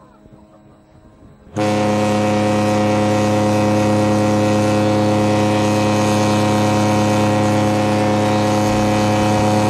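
Ship's horn sounding one long, steady blast of several held tones. It starts suddenly about a second and a half in, after a moment of near quiet.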